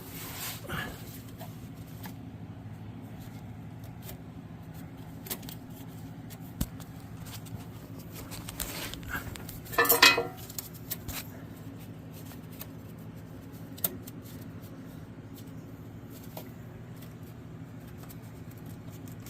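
Scattered metallic clinks and taps of hand tools and loose exhaust parts being handled under a car, with a louder clatter about ten seconds in, over a steady low hum.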